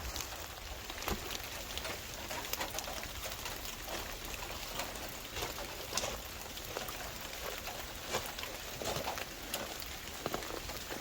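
Rain falling, with individual drops ticking sharply on a hard surface at irregular moments.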